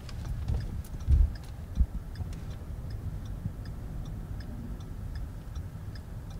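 Car cabin while driving: low engine and road rumble with a turn-signal indicator ticking evenly, about two to three clicks a second. A couple of dull thumps sound between one and two seconds in.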